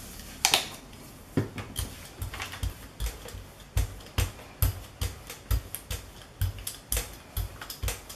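A brayer rolled back and forth through wet acrylic paint on a gel printing plate: a series of short clicks and soft thumps, about two a second.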